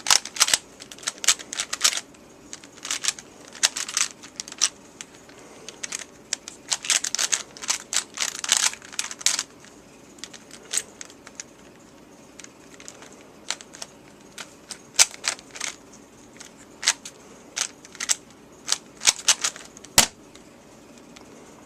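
Plastic 3x3 Rubik's cube being turned by hand during a speedsolve: quick runs of clicking and clacking layer turns broken by short pauses. The turns become sparser, with single clicks, in the second half.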